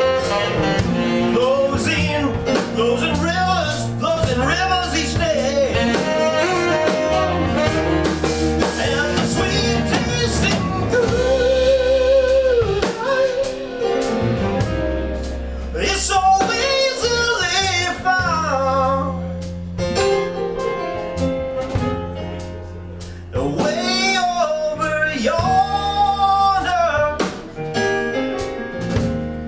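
Live band playing: a saxophone solo of long held notes with vibrato over piano, electric bass, guitar and drum kit.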